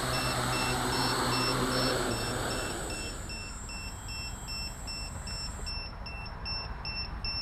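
Hexacopter's brushless motors and 13-inch carbon-fibre props winding down on the ground, fading out over the first two to three seconds. Through it an electronic warning beeper sounds short high beeps, about three a second: the low-battery voltage warning.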